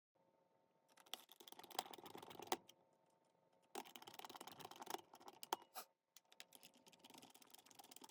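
Faint clicking and scratching from a small cassette player being handled and worked during a test, in three spells, over a faint steady hum.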